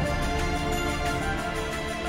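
Background music with held notes and a light, steady beat.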